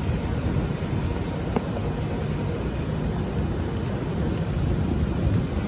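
Steady low rumble of airport ramp noise from aircraft and ground equipment, with a faint click about a second and a half in.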